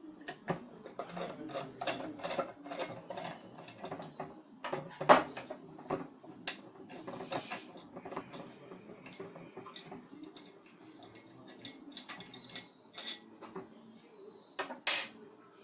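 Metal parts of a ceiling fan motor being handled and taken apart by hand: irregular clicks, rattles and scrapes, with a sharp knock about five seconds in and another near the end.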